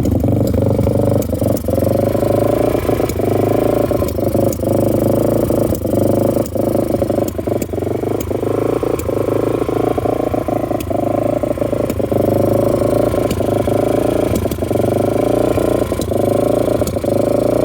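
1998 Yamaha XT350 single-cylinder four-stroke engine running at a fast idle, around 3,000 rpm, with a steady drone broken by frequent irregular sharp clicks and pops. This is the strange sucking, clicking and popping noise of an engine that will only idle at that speed and dies if the revs go higher or lower.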